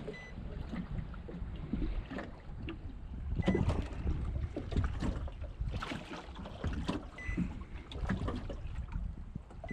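Wind buffeting the microphone over small waves lapping and slapping against an aluminium boat's hull, with irregular little knocks and splashes.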